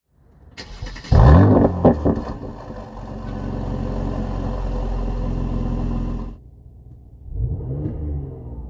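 Mercedes-AMG C43's 3.0-litre twin-turbo V6 through its Performance exhaust, starting up with a loud flare of revs about a second in and a pop just after, then settling to a steady fast idle. The sound cuts off abruptly about six seconds in, and a single throttle blip rises and falls near the end.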